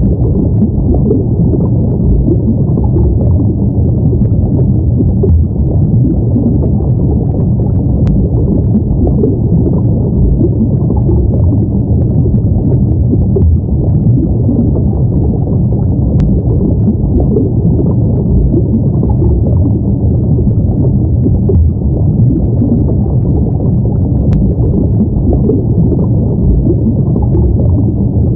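Underwater ambience: a steady, loud, low rumble of muffled water with nothing high in it.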